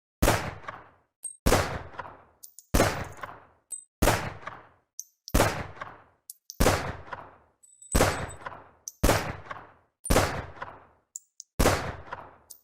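Glock 17 9mm pistol fired in single shots, ten of them at an even pace of roughly one every 1.3 seconds, each crack followed by a short decaying echo. Faint small clicks sound between some of the shots.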